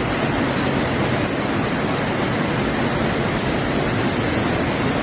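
Loud, steady rushing noise of storm water, heavy rain or floodwater.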